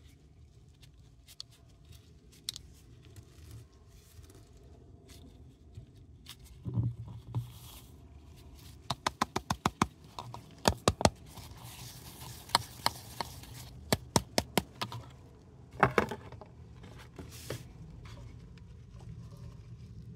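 Crushed paradichlorobenzene mothball powder being shaken and tipped out of a plastic container into a glass jar: granules pattering and scraping, with sparse faint ticks at first. In the middle come runs of quick sharp taps, about five a second.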